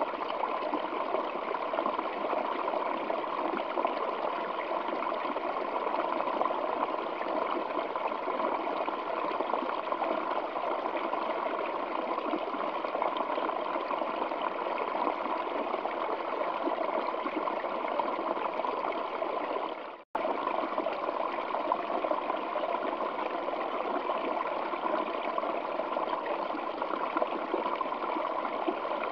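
Waterfall water flowing over rocks: a steady, even rush. It cuts out for an instant about two-thirds of the way through, then resumes unchanged.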